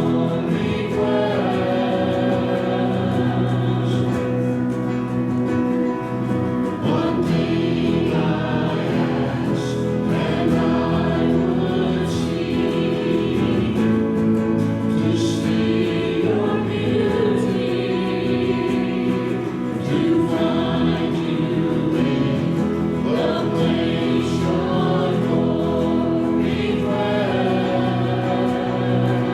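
Many voices singing a worship song together in long held chords.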